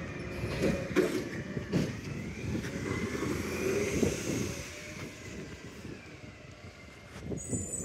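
New Way Sidewinder side-loader garbage truck running as it pulls away down the street, with a faint whine that rises and falls partway through. A few light thumps come in the first couple of seconds.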